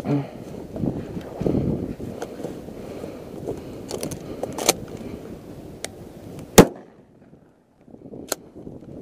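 Wind on the microphone and rustling movement through grass, then a single loud 12-gauge Remington 870 pump shotgun shot about six and a half seconds in: a finishing shot on a wounded turkey.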